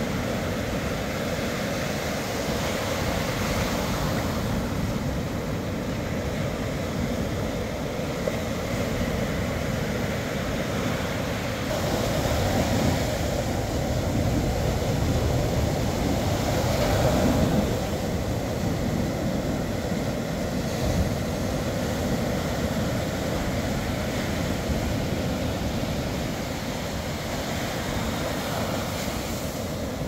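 Sea waves breaking on a sandy beach and foam washing up the shore: a steady rushing surf that swells louder for several seconds around the middle.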